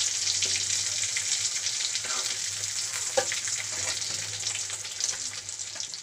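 Egg pieces frying in hot oil in a karahi, a steady crackling sizzle, while a spatula turns and scrapes them in the pan. One sharp click stands out a little after three seconds in.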